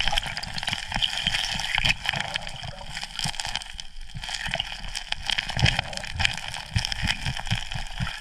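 Underwater sound of a hand fanning gravel and silt out of a bedrock crack in a creek bed: a steady rush of water, many small clicks of stones knocking together and low thumps of water being pushed.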